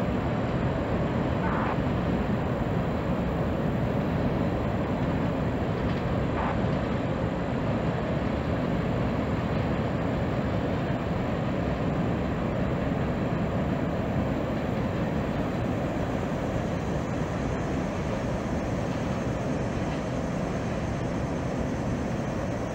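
Distant freight train rolling across a steel railroad trestle: a steady, even rumble of the cars passing, with no horn.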